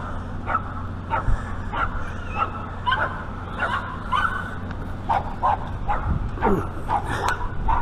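A dog yipping and whimpering over and over, short high calls about twice a second, some sliding down in pitch, over a low steady hum.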